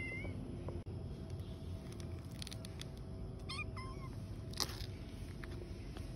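Kittens mewing: the tail end of one meow as it begins, then two short, rising mews a little past the middle. A single sharp tap follows soon after, over a steady low outdoor rumble.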